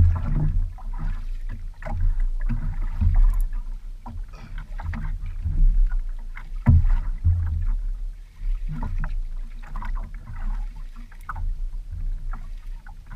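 Sea water slapping and sloshing against a small wooden outrigger boat's hull, with irregular knocks and thuds through the boat.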